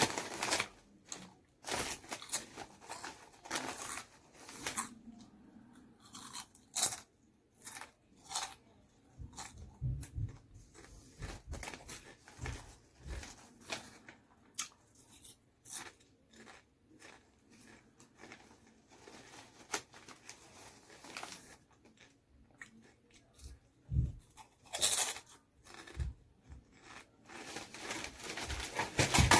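A person crunching and chewing Lay's barbecue lightly salted potato chips, in irregular crisp crunches that come and go for the whole stretch, with a louder cluster near the end.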